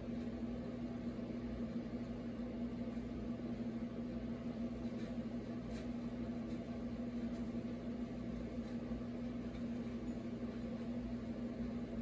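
Steady low machine hum.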